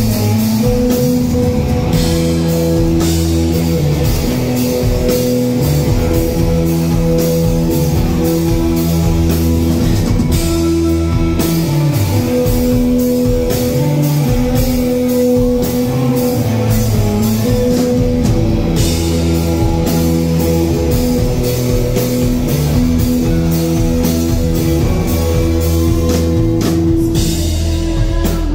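Live rock band playing an instrumental passage: electric guitars, bass guitar and drum kit, loud and steady, with sustained guitar notes over a regular drum beat.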